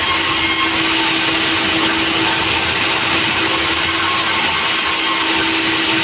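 Sawmill machinery running steadily: a loud, even noise with a steady hum underneath, unchanging throughout.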